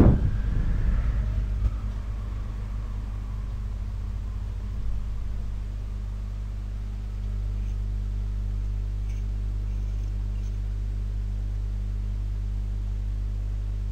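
Steady low electrical hum with buzzing overtones, the recording's background noise between narration. A faint tone fades out in the first two seconds.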